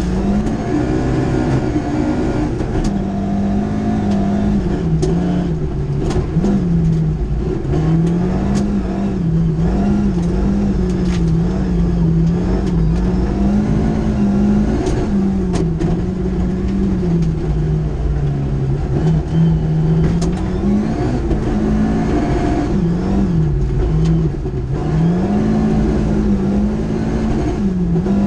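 Classic rally car's engine heard from inside the cockpit at speed on a gravel stage, revving up and dropping back again and again through gear changes and lifts. Sharp clicks of gravel hitting the underbody are scattered throughout.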